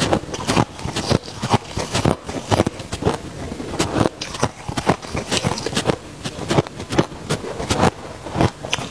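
Close-up chewing of crunchy white freezer-frost ice: dense, irregular crunches, several a second.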